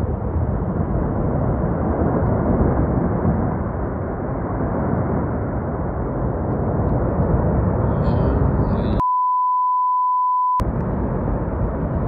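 Continuous deep rushing noise of a glacier-ice avalanche pouring down a mountainside. About nine seconds in, it cuts out for a second and a half, replaced by a steady censor beep, then returns.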